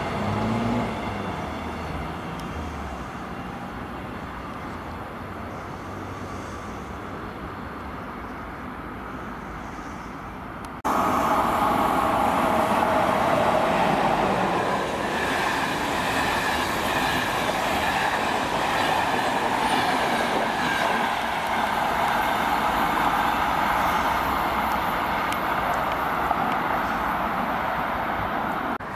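A CP series 2240 electric multiple unit running away from the listener, its sound fading over the first few seconds. About eleven seconds in, a louder sound cuts in: an Intercidades train, a CP 5600 electric locomotive hauling Corail coaches, passes close by at speed, its wheels rushing on the rails with a steady whine.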